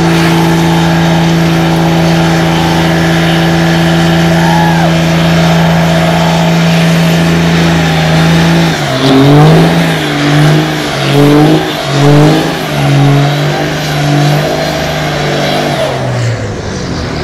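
Dodge Ram pickup's engine held at high revs in a burnout, its rear tires spinning in smoke: a steady note for about the first eight seconds, then the revs pumped up and down in surges about once a second, easing off near the end.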